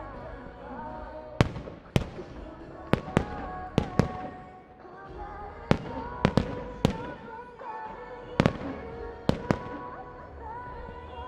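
Aerial firework shells bursting in an irregular series of more than a dozen sharp bangs, some in quick pairs, over a pop song with a singing voice.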